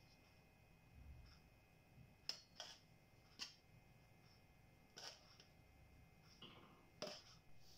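Near silence broken by about five faint, sharp taps and clicks: a spoon tapping against a stainless-steel bowl as rice flour is added to sliced onions.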